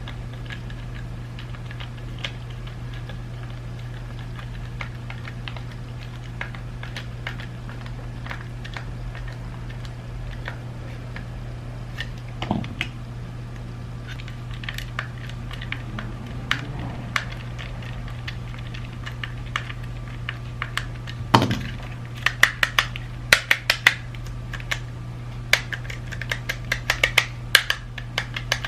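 Small plastic parts of a BMW iDrive controller being handled and fitted together: scattered light clicks and taps, then a louder knock about 21 seconds in followed by many quick sharp clicks, over a steady low hum.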